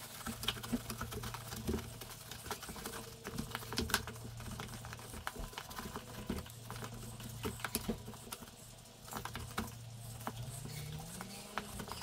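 Rag wiping out the inside of a dirt bike's plastic air box after a spray of air box cleaner, with light irregular scuffs and small taps.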